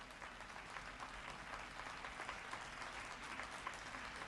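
Audience applauding steadily, faint and even, with no single clap standing out.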